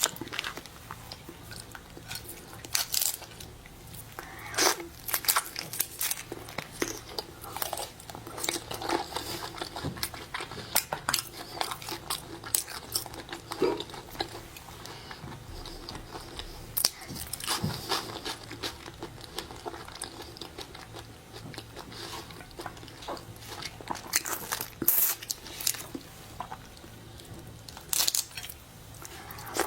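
Close-miked eating of shellfish: irregular sharp cracks of shells breaking, biting and wet chewing.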